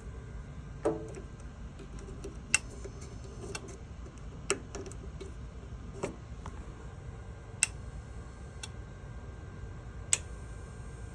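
A handful of sharp single clicks, about five, spaced a second and a half to two and a half seconds apart, over a low steady hum.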